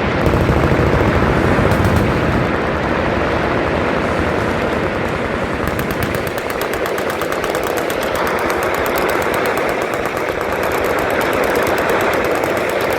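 Continuous machine-gun fire: rapid automatic shots overlapping into a steady rattle, which grows more distinct from about halfway through.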